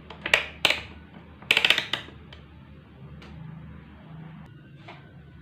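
A few sharp clicks, then a short rattling clatter about one and a half seconds in, and some faint ticks after: small hard tools or parts being handled on a workbench.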